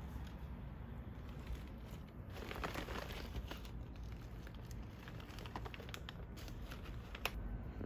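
Crinkling plastic and scattered light clicks as a plastic water bowl is set down on a plastic bag next to a cat's food bowl, busiest about two and a half to three and a half seconds in, with one sharp click near the end, over a low steady rumble.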